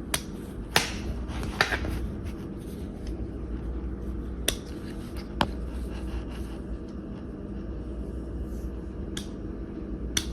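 Scattered sharp clicks and crackles of a multi-tool's retail package being worked open one-handed, over a steady low hum.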